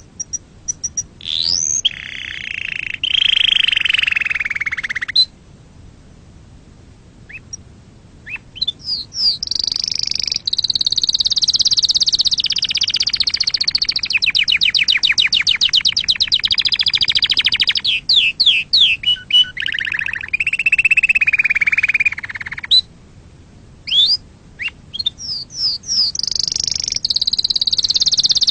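Domestic canary singing long phrases of fast rolling trills and gliding whistled notes. A pause of about three seconds falls about five seconds in, and a shorter one comes near the end.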